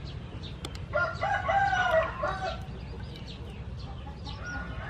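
A rooster crows once, starting about a second in and lasting about a second and a half, over a steady low noise.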